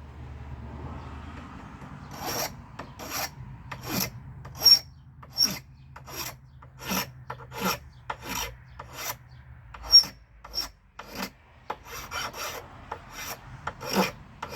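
Hand file rasping on a knife handle in short back-and-forth strokes, about one every half to three-quarters of a second, starting about two seconds in.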